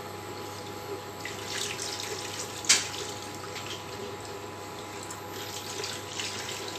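Coconut milk pouring into a wok and being stirred with a wooden spatula: liquid swishing and sloshing, with one sharp knock a little under three seconds in.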